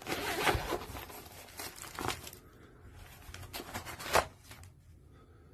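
Handling noise: rustling and crinkling for about two seconds, then a few sharp knocks, the loudest about four seconds in.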